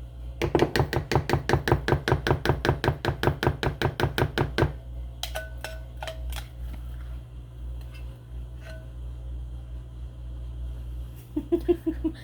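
A utensil beating fast against a bowl, about nine strokes a second for some four seconds: mixing cream of mushroom soup and milk. A few scattered clicks and knocks follow.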